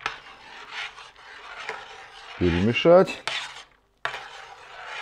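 Metal spoon stirring pasta shells in a stainless steel pot of boiling water, scraping and clinking against the pot. A short burst of a man's voice comes about two and a half seconds in.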